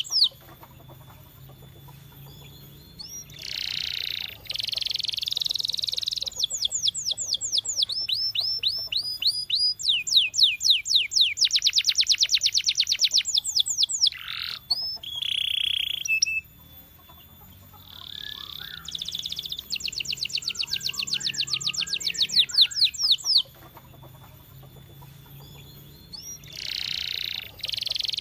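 Canary singing: phrases of rapidly repeated high notes and fast trills, broken by short pauses of a second or two.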